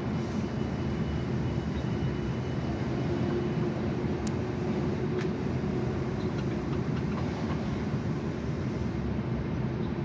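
A steady low rumble with no clear pitch, with a faint hum in the middle and a couple of faint clicks.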